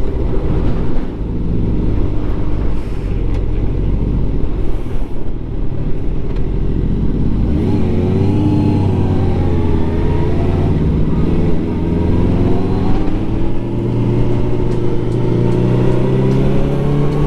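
Suzuki GSX-R 750's inline-four engine under way, its note rising and falling as the bike accelerates and changes gear, over a rush of riding wind.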